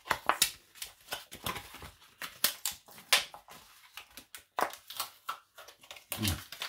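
Crinkling and sharp clicking of a vacuum-sealed plastic food tray and its cardboard sleeve being handled and pulled at while someone tries to open the package, in irregular clusters with short pauses.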